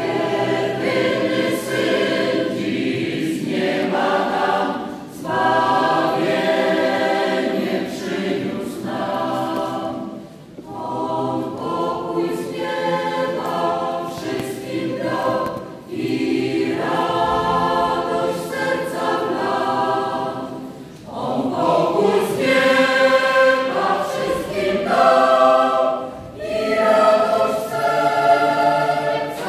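Mixed choir of women's and men's voices singing a Polish Christmas carol unaccompanied, entering all together at once and moving in phrases with short breaks about every five seconds.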